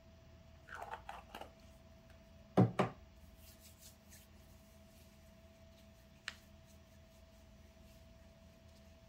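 A few soft rustling taps, then two quick sharp knocks about two and a half seconds in, and a single short click a little past six seconds, over a faint steady hum.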